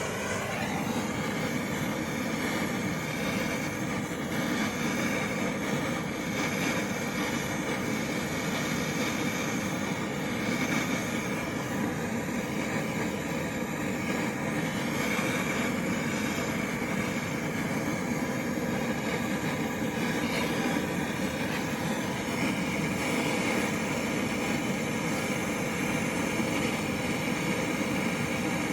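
MAP gas torch burning steadily with an even rushing noise, heating the flexshaft cable red-hot for silver soldering.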